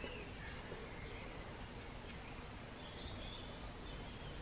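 Faint birdsong, with scattered short chirps from small birds over a steady low outdoor background noise.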